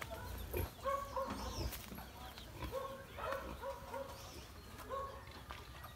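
Chickens clucking: short pitched calls repeating about once a second, over a low rumble on the microphone.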